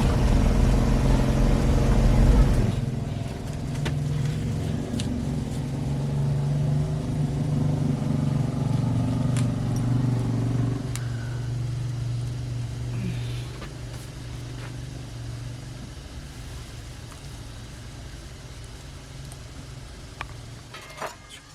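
A motor vehicle's engine running, loud for about the first three seconds, then fading slowly away.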